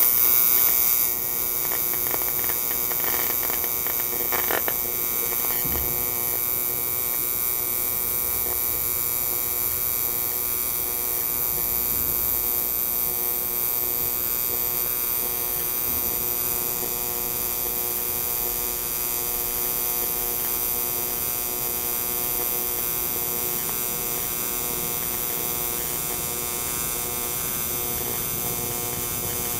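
AC TIG welding arc on 2 mm aluminium sheet from a Sanjoe TIG200P AC/DC welder at 100 A, giving a steady buzz at its 120 Hz AC frequency with a 10% electrode-positive (cleaning), 90% electrode-negative (penetration) balance. The arc strikes right at the start and then holds steady.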